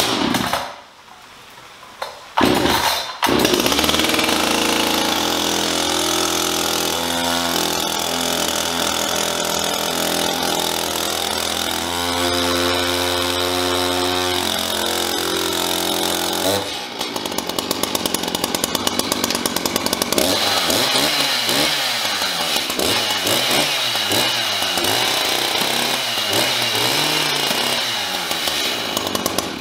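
Gas chainsaw started with a couple of quick pulls about three seconds in, idling steadily. From about halfway on it is revved up and down over and over as the chain cuts through plastic strapping bands on a cardboard box.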